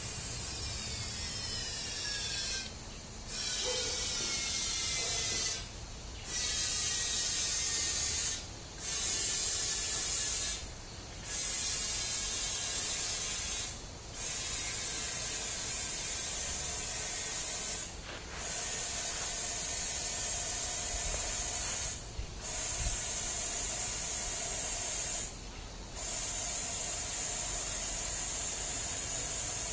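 Compressed air hissing steadily, cut off briefly eight times at intervals of about two to four seconds.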